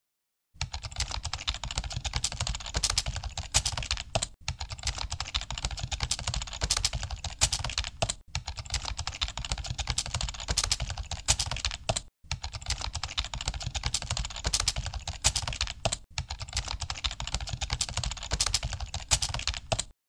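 Dense clicking and crackling sound effect, looped in about four-second stretches with a brief silent break between each.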